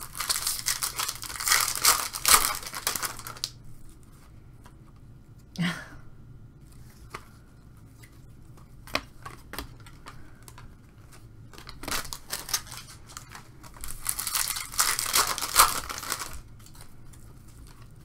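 Silver foil wrapper of a baseball-card pack torn open and crinkled, in two long crackly bursts: one in the first few seconds and another from about twelve to sixteen seconds in. Small clicks of card handling come between them.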